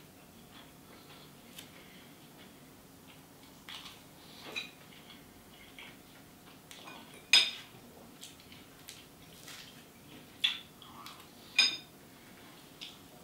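Metal fork clinking and scraping against a ceramic bowl in a few irregular, sharp knocks, the loudest about seven seconds in and two more near the end.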